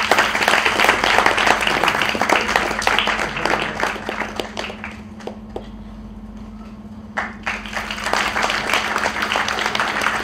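Applause from many people clapping, thinning to scattered claps about halfway through and swelling again about seven seconds in.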